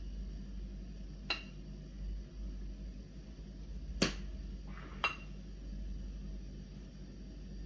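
Three short clinks of kitchenware, like a utensil knocking against a glass or metal bowl, each with a brief ring; the second is the loudest. A low hum sits underneath.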